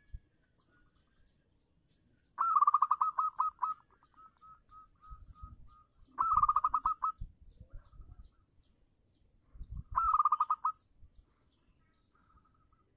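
Zebra dove (perkutut) cooing: three phrases of rapid staccato trilled coos about four seconds apart. The first trails off into a run of softer notes.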